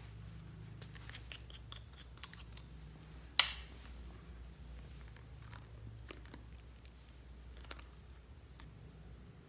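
Small plastic clicks from a squeeze tube of gel being opened and handled, with one sharp snap about three and a half seconds in, the loudest sound. A few faint clicks follow as the gel is squeezed out.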